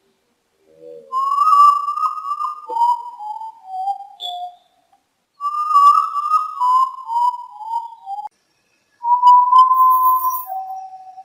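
Common potoo (urutau) singing: two runs of mournful whistled notes, each stepping down in pitch over about three seconds, then a long held whistle and a shorter, lower one near the end.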